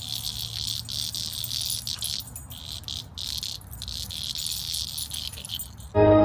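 Insects chirring in a steady high-pitched chorus with a few brief breaks, cut off shortly before the end by music.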